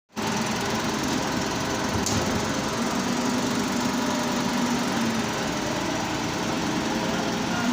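An engine running steadily at an even pitch, with a single short click about two seconds in.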